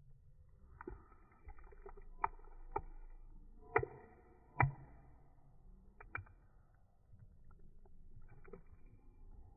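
French bulldog chewing a hard stick-like snack: irregular sharp crunches between quieter chewing, the loudest two coming close together around the middle.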